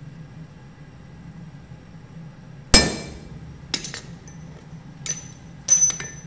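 Damascus steel knife blade laid down on a steel anvil face with one sharp clank, then several lighter clinks and knocks as it is shifted, the last few leaving a brief high ring.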